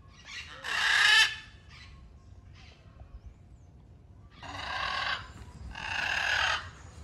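Blue-and-yellow macaws giving loud, harsh squawks: one about a second in, a few faint calls after it, then two more loud squawks near the end.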